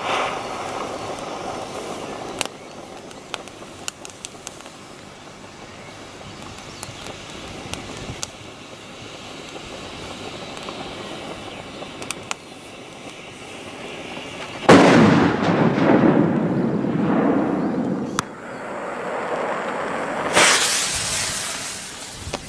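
Large firecrackers going off: a few small scattered pops, then about two-thirds of the way in a sudden loud bang with a long echoing rumble, a short sharp crack, and a second loud bang near the end.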